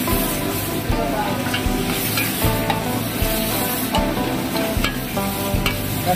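Thick masala of onion, capsicum and chilli paste sizzling as it fries in an aluminium pot while a metal ladle stirs and scrapes through it, the ladle knocking against the pot about once or twice a second.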